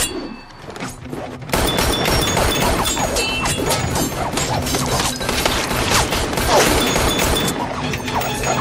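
Action-film fight soundtrack: after a brief lull, a dense run of crashes, hits and gunshots starts about a second and a half in, over the film's score music.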